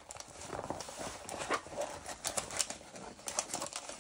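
A stiff diamond-painting canvas rustling and crackling as hands unroll it and press it flat, with irregular crinkles and light taps.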